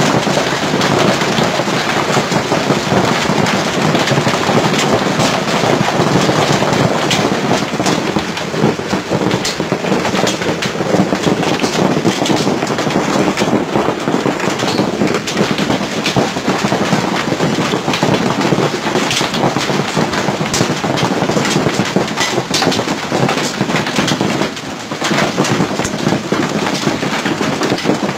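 Heavy hail and rain pelting down on pavement and parked cars: a dense, steady hiss packed with countless sharp ticks of hailstones striking.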